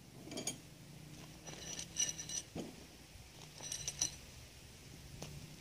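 Small metal fittings of a steel-tube greenhouse frame, such as band clamps and bolts, clinking as they are handled. There are three clusters of light, ringing metallic clinks: just after the start, about two seconds in, and about four seconds in.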